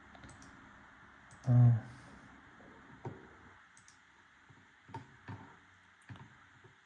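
A brief voiced hum or murmur about a second and a half in, then a few soft, scattered clicks of small electronic parts and plastic being handled.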